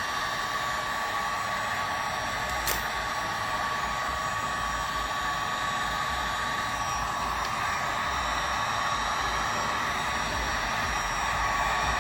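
Steady whooshing noise of a small electric blower, like a hair dryer or heat gun, with a faint steady whine.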